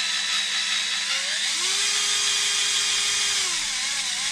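Snap-on cordless drill-driver running, driving a screw into an RC truck's chassis. Its whine rises in pitch about a second and a half in, holds, and drops off again near the end.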